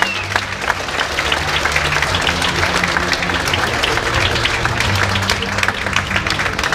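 Audience applauding: dense, steady clapping from a seated crowd, over background music.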